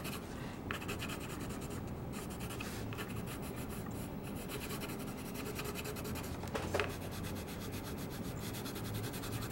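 Colored pencil scratching on black paper in rapid back-and-forth shading strokes, a steady fast rasp.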